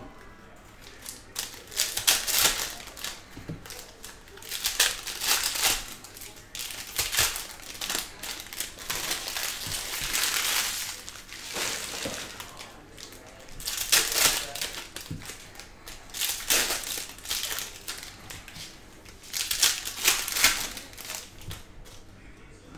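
Foil trading-card pack wrappers crinkling as they are torn open, in bursts every two to three seconds. Between the bursts come quieter sounds of glossy cards sliding against each other as they are handled.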